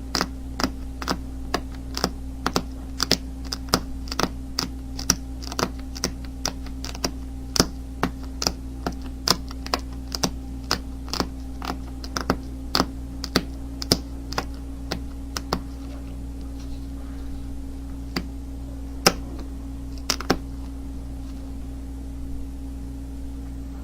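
Flint being chipped: a run of short, sharp clicks of a knapping tool detaching small flakes, about two a second, thinning to a few spaced clicks after about 15 s, over a steady low hum.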